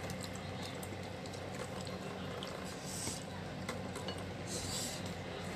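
Eating sounds at a bowl of chicken noodles: light clicks of a fork against the bowl, with two short hisses about three seconds in and near the end, over a steady low hum.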